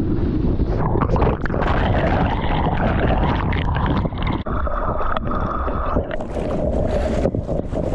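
Rushing, churning water of a breaking wave close on a GoPro's microphone as the camera rides through the barrel. About halfway through, the sound turns dull and muffled as the camera is pulled under the whitewater, then clears again as it comes back up.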